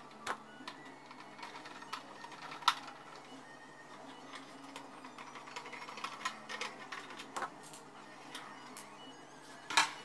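Sheet-metal heating-element housing of a Samsung clothes dryer being handled and fitted back together by hand: scattered light metal clicks and clinks, with a sharp click a few seconds in and a louder clatter near the end as the housing is set down on the floor.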